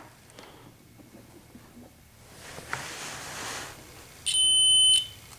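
Digital multimeter's continuity beeper giving one steady high beep of under a second, about four seconds in, as the probe touches the plug pin. The beep signals continuity through the re-wired white wire.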